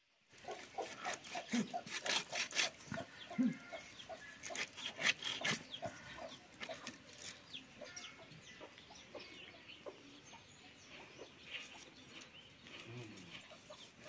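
Chickens clucking repeatedly, mixed with sharp clicks and knocks, most of them in the first half.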